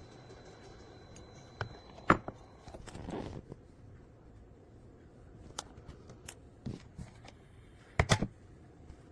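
Scattered clicks and knocks of hands handling objects, with a short rustle about three seconds in and a quick cluster of loud knocks about eight seconds in.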